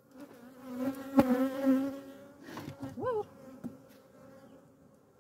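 Honeybee colony buzzing steadily from the opened hive, with one sharp crack about a second in and a louder buzz sweeping up in pitch about three seconds in as a bee passes close by.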